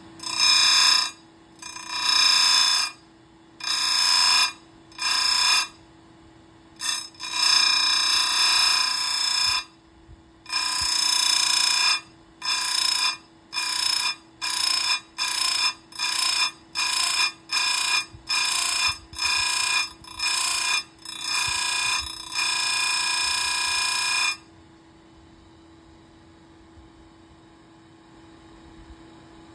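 Simington chain grinder's wheel grinding the cutter teeth of an Oregon 72EXJ full-chisel chainsaw chain, reshaping the round factory grind to a square grind. About twenty short, high-pitched grinding bursts, one per tooth pass, come quicker and more evenly in the second half, with one longer grind before they stop about 24 seconds in, leaving a steady hum.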